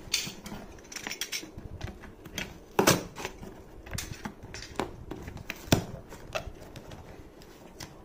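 Cardboard shipping box and its paper sleeve being pulled and torn open by hand: irregular crackles and clicks of cardboard and paper, with two sharper snaps, one about three seconds in and one just before six seconds.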